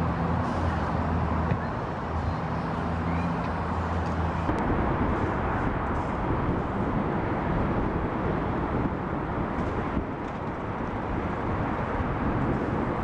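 Steady rushing noise of the Portland Aerial Tram cabin in motion, with a low hum underneath that fades out about four seconds in.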